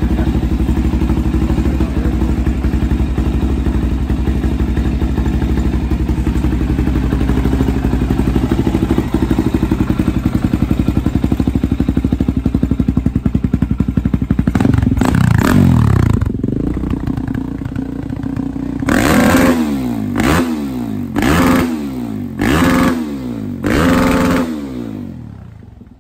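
Suzuki DR-Z400SM's single-cylinder four-stroke engine, freshly fitted with a Keihin FCR41 carburettor and breathing through a Yoshimura exhaust, idling steadily, then revved once about fourteen seconds in and blipped five times in quick succession, each blip about a second apart, before fading near the end.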